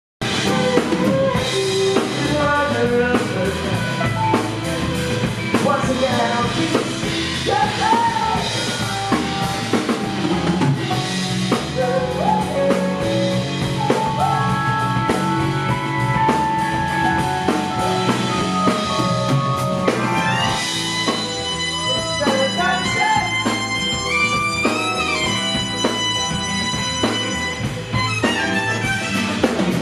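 Live band music with a keyboard, drum kit and a held lead melody over a steady beat; the long melody notes with vibrato become more prominent in the second half.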